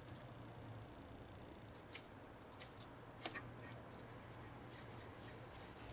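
A few faint, sharp clicks, about two, two and a half and three and a quarter seconds in, over a steady low hum.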